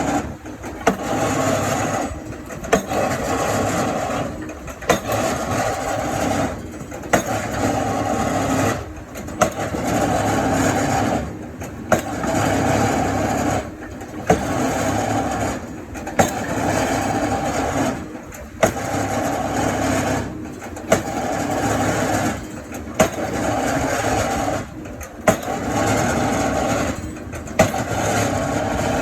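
Excavator engine working hard in a steady cycle that repeats about every two seconds: a stretch of loaded running, a brief dip, then a sharp knock.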